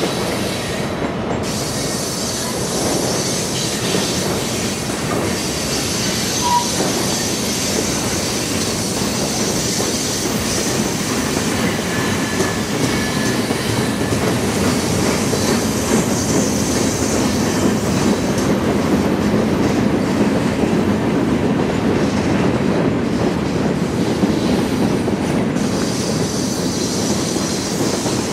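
Freight train cars rolling steadily past on steel rails, a continuous rumble of wheels and car bodies, with faint high wheel squeal coming and going.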